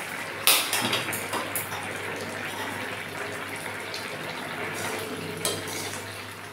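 Curry simmering in an open aluminium kadai on a gas burner, a steady watery hiss. A loud metal clank about half a second in as the pan lid is set down, a few lighter clinks just after, and the ladle knocking against the pan near the end.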